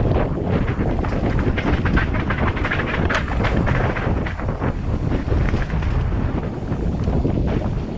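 Wind buffeting the microphone of a camera riding along on a hardtail mountain bike, with a steady low rumble and a busy clatter of short knocks from the bike going over rough ground.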